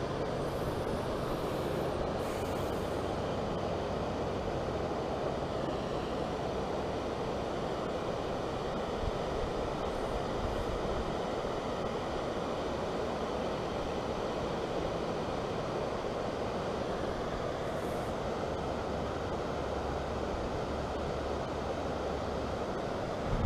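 Steady rushing roar of water pouring through the spillway under the bridge, even and unbroken.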